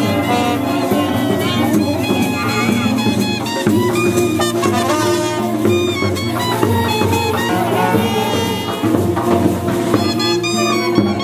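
Instrumental background music: a melody line over a steady bass and light percussion, with no singing.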